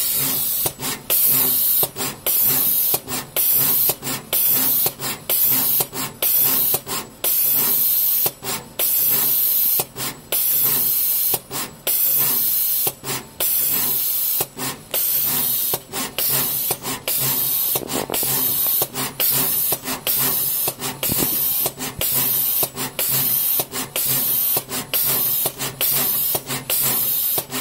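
Autotronik SMT pick-and-place machine at work: a loud, steady air hiss that cuts out in brief gaps about one to two times a second as the head picks and places parts, over a low machine hum.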